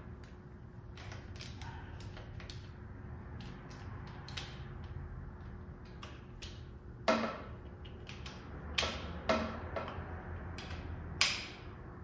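Hand tools working on an engine: irregular small clicks and taps of metal on metal, with a few sharper knocks, as bolts are snugged down by hand until a rubber seal compresses.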